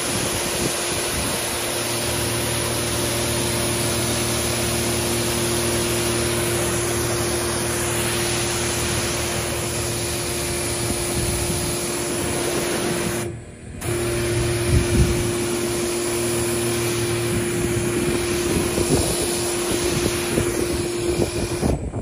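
Electric ride-on vacuum road sweeper running: a steady rushing hiss from its vacuum with a steady hum underneath. It breaks off for a moment about halfway through, then carries on.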